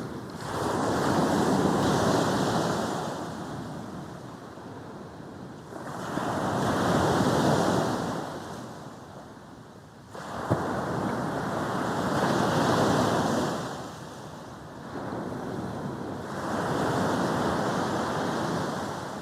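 Sea waves breaking on a beach and washing up the shore, in four swelling surges about five seconds apart; one wave breaks abruptly about ten seconds in.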